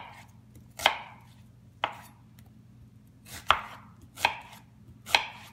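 Chef's knife slicing through a yellow onion into half rings, each cut ending in a sharp knock on a wooden cutting board: five cuts, unevenly spaced about a second apart.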